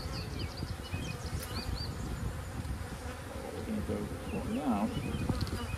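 Many honeybees buzzing around an open hive with a frame of bees held up: a steady hum.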